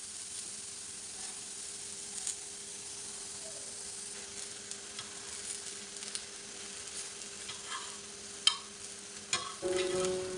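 Eggplant slices sizzling steadily as they fry on a flat griddle (tawa), with metal tongs clicking against the griddle now and then as the slices are turned; the sharpest click comes about eight and a half seconds in.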